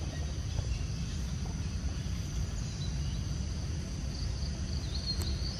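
Steady trilling of insects over a low rumble, with a short higher chirp near the end.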